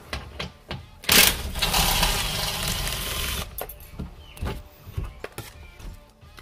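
Craftsman cordless impact gun running in one burst of about two and a half seconds, backing out a 10 mm bolt on the plastic oil-drain access door under the car. Short clicks and knocks of the tool and the panel being handled come before and after it.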